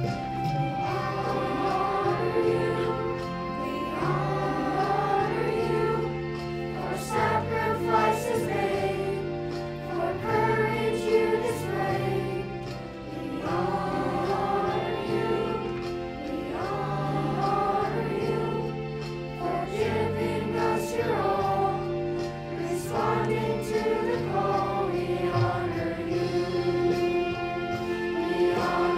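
Music: a choir singing a slow piece over held low accompaniment notes.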